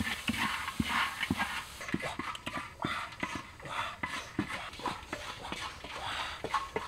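A bamboo stick stirring crickets roasting in a large metal wok over a fire: irregular knocking and scraping of the stick and the insects against the pan, a few strokes a second.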